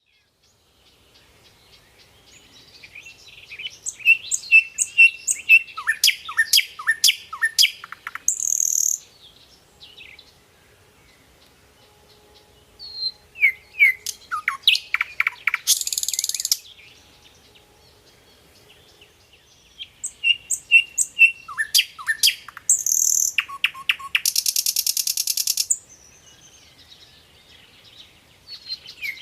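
A songbird singing in three bouts separated by pauses: quick chirps and rapid falling notes, each bout ending in a harsh buzzy rattle.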